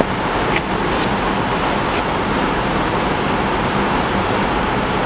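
Steady rushing background noise with a low hum underneath, and a few faint crinkles of a paper instruction sheet being handled in the first two seconds.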